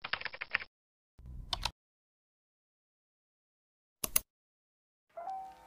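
Interface sound effects: a short rattle of rapid clicks, a brief noisy sweep, then a single sharp mouse click about four seconds in as the play button is pressed. Just after five seconds in, soft lo-fi background music begins, as from a music player started by that click.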